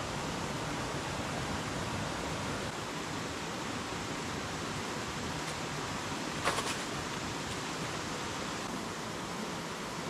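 Steady rushing of a small forest stream flowing over rocks, with a brief cluster of clicks about six and a half seconds in.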